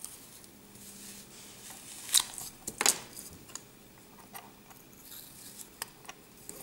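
A plastic toy knife scraping kinetic sand level across the face of a plastic castle-wall mould, with soft rasping strokes and two sharp clicks of plastic on plastic about two and three seconds in, then a few lighter ticks.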